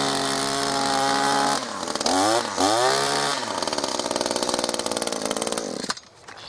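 Echo SRM-2620T string trimmer's small two-stroke engine running fast, revved up and down twice about two seconds in, then settling to a lower, slightly uneven speed before cutting off suddenly near the end.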